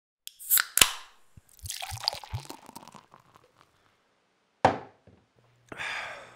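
Beer being opened and poured into a glass: two sharp clicks, then a fizzing pour with a few short low glugs, a sharp knock a little past halfway, and a short fizzy hiss near the end.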